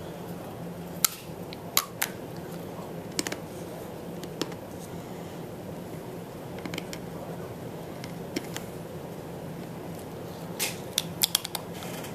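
Scattered sharp clicks and crunches of someone chewing a hard, brittle stick of 32-year-old bubble gum from a 1982 Fleer wax pack, a few at first and a quick cluster near the end, over a steady low hum.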